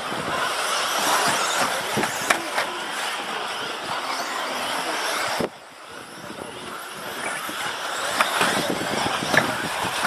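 Several radio-controlled model cars racing on a carpet track, their motors and tyres making a steady high-pitched whirring noise, with a few light clicks. The sound drops suddenly about halfway through, then builds again.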